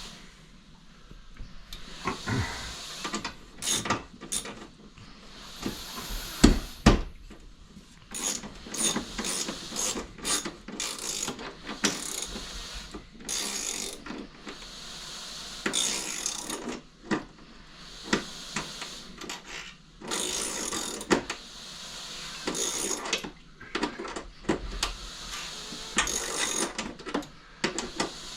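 Irregular clicks, scrapes and short metallic rattles of hand tools and TV wall-mount hardware as a TV is fitted and screwed onto its wall bracket.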